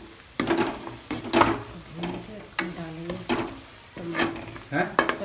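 A spatula scraping and stirring onions frying in oil in a steel kadhai, with repeated strokes about two a second from about half a second in. The oil sizzles under the strokes as the onion-and-spice tadka cooks.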